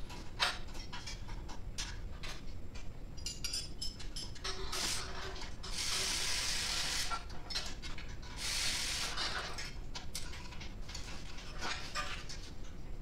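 Clinks and clatter of metal parts and tools being handled, with two short noisy bursts of about a second each around the middle.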